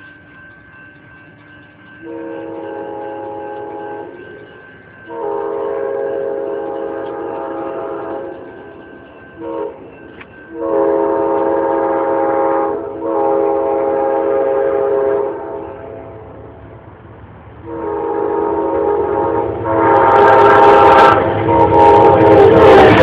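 Amtrak P42 locomotive's K5LA five-chime horn sounding a series of blasts (long, long, short, then long), played with a nice quill as the train comes on at about 79 mph. Near the end the train rushes past close by, and the loud noise of the passing train joins the horn.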